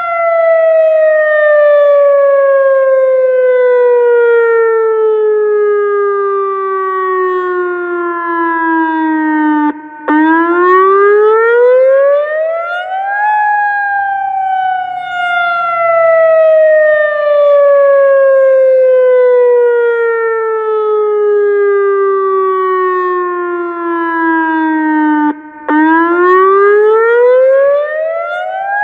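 ATI HPSS-32 electronic outdoor warning siren sounding its wail tone in a test. The loud, rich tone sinks slowly in pitch for about ten seconds, cuts out for a moment, then climbs back up over about three seconds, and the cycle goes round twice.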